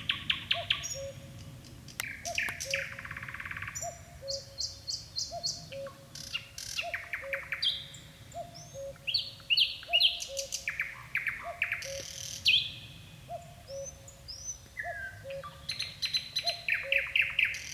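Nightingale singing: rapid trills and rattles of repeated notes alternating with clear whistles, in phrases broken by short pauses. Beneath the song, a second low two-note call repeats steadily about every three-quarters of a second.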